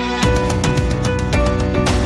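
Background music track with sustained instrument tones over a steady beat.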